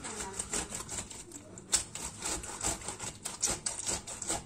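Tomato being grated by hand on a stainless steel box grater: quick rasping strokes repeated about three or four times a second.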